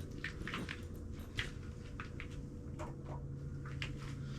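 Footsteps crunching on snow and ice, about two uneven steps a second, over a steady low hum.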